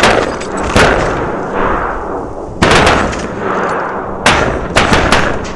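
Shotguns firing at flying ducks: an irregular volley of about six loud blasts from several hunters, each with a long echoing tail.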